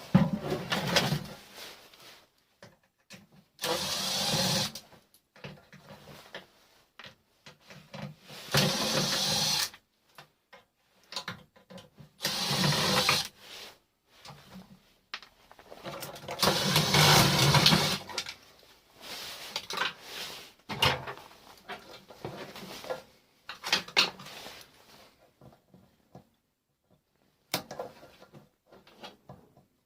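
A handheld power tool runs in short bursts of a second or two, about five times, with clicks and knocks of metal parts in between as a microwave oven is dismantled.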